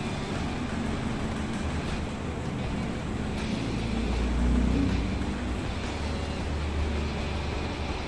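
Three-bladed ceiling fan running at speed: a steady rush of air with a low hum, swelling briefly around the middle.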